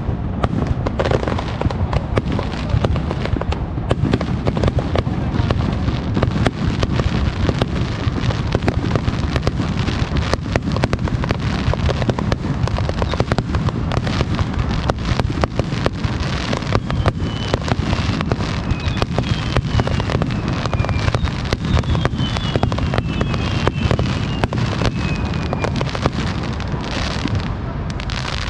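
Fireworks display in a dense, continuous barrage, booms and crackling bursts following one another with hardly a gap. In the second half a few thin whistles fall in pitch over the bursts.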